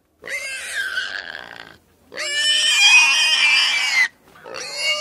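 Pigs screaming: three long, high-pitched squeals separated by short breaks, the middle one the loudest and the last still going at the end.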